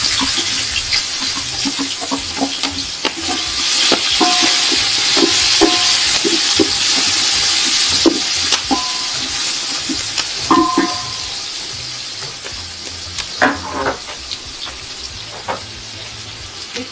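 Food frying in hot cooking oil in a pan: a steady sizzle that eases off after about twelve seconds, with scattered clicks of a spoon stirring against the pan.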